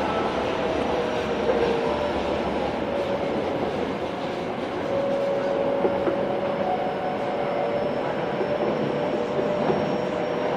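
Kobe Municipal Subway 1000 series train with Hitachi GTO-VVVF drive running between stations, heard from inside the car: steady rolling noise with occasional rail-joint clicks and a few faint whining tones that drift slightly in pitch.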